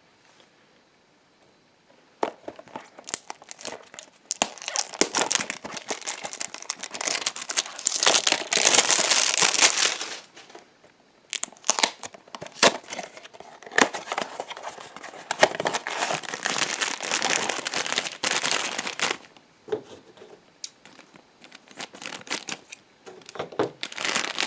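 Packaging of a Funko Mystery Minis blind box being torn open and crinkled by hand, in repeated bursts with short pauses, loudest about a third of the way in.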